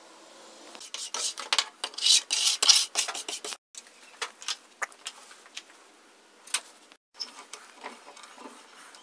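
Workshop handling noise: a run of sharp knocks, scrapes and rubs as plywood boards are laid together and metal clamps are fitted and tightened on them. The knocks come thick and loud in the first few seconds, then thin out.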